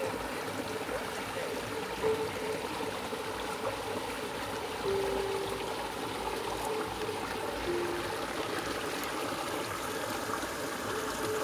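Shallow muddy stream water flowing steadily and swishing as a mesh scoop net is pushed through it.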